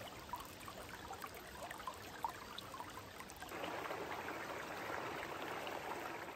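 Small brook running over rocks: a light trickle with scattered small plinks of water, turning to a louder, fuller rush about halfway through.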